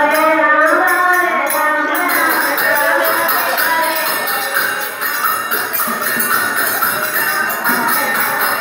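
Music: a melody over a steady jingling percussion rhythm.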